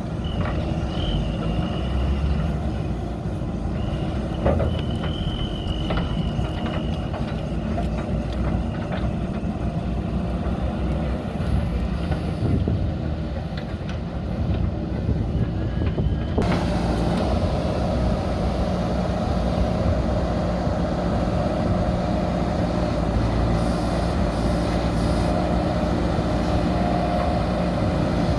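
Heavy diesel engine running steadily, with two short high-pitched tones in the first seven seconds; the sound changes abruptly about sixteen seconds in.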